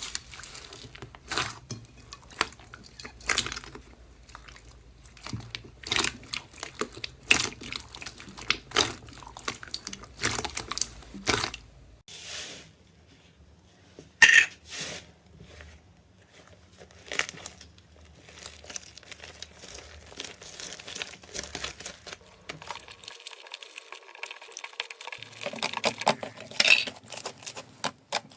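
Slime being squeezed and stretched by hand, making irregular sticky pops, clicks and crackles, with a quieter stretch about twelve seconds in.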